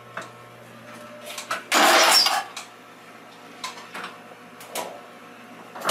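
Handling noise: scattered clicks and a loud clattering rustle about two seconds in, as hands work on the mower and the camera moves, over a steady low hum.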